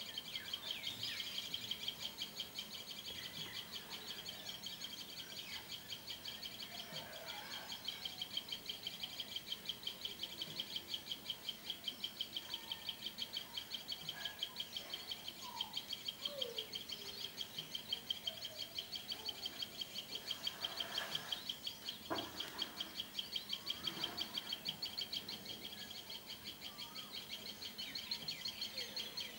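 Outdoor wildlife chorus: a steady, high-pitched, rapidly pulsing chirr, with a few short bird calls over it.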